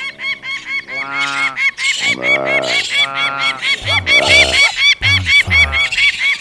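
Cartoon animal sound effects: several drawn-out honk-like animal calls, about one a second, over a fast, even run of short high chirps.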